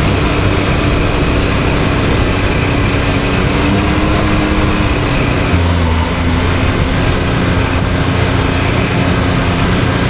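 Can-Am Maverick X3 side-by-side's three-cylinder engine running steadily while driving a trail, with background music mixed in.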